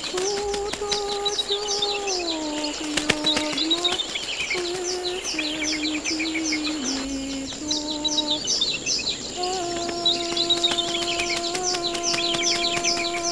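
Small birds twittering, many quick high chirps repeating several times a second, over a slow melody of long held notes that step up and down in pitch.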